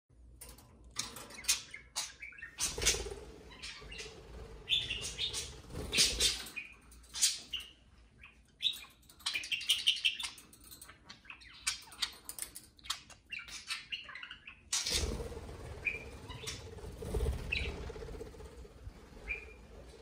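Two budgerigars chirping and chattering in quick, irregular bursts of short high calls, with a few louder fluttering wing beats.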